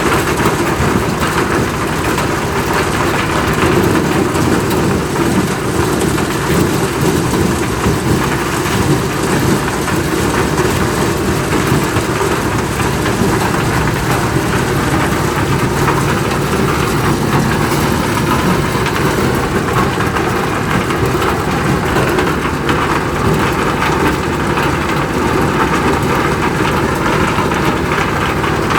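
Engine-driven corn sheller running steadily, a constant engine hum under a dense, even mechanical noise with no let-up.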